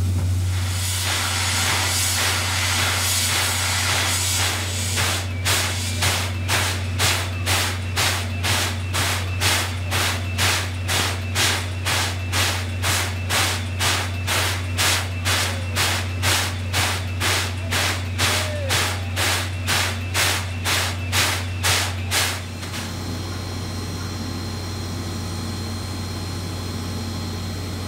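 C56 steam locomotive hissing steam for a few seconds, then chuffing evenly at about two exhaust beats a second as it works at slow speed, over a steady low hum. The chuffing cuts off suddenly about 22 seconds in.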